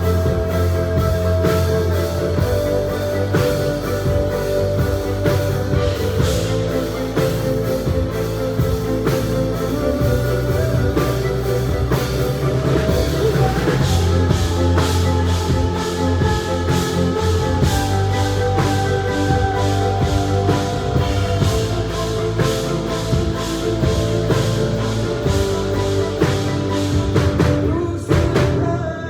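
Pop song played live: an instrumental passage with a steady drum beat, bass and held keyboard-like tones, dropping back in level just before the end.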